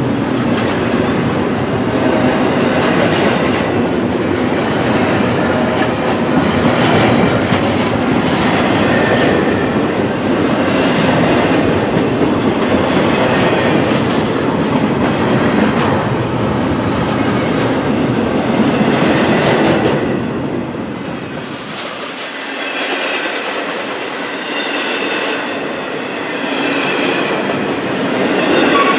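Double-stack intermodal freight cars rolling past close by, the wheels clattering over the rail joints in a steady loud rumble. About twenty seconds in the sound drops to a quieter, thinner rolling.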